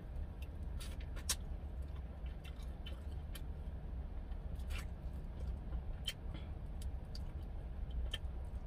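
Close-up eating sounds of a smoked BBQ chicken wing being gnawed: scattered wet clicks and smacks of chewing and pulling meat off the bone, over a steady low rumble.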